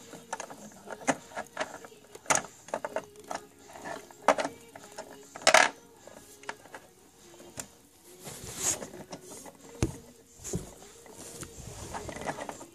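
Small plastic Littlest Pet Shop figures and accessories clicking and knocking on a hard tabletop as they are handled and set down: a scattered series of light taps, the loudest about five and a half seconds in, with some rustling near the middle.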